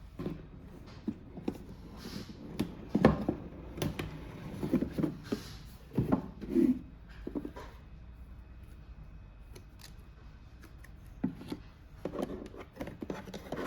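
A hair dryer's box and packaging being handled and opened: scattered clicks, taps and rustles, loudest about three seconds in. The dryer itself is not running.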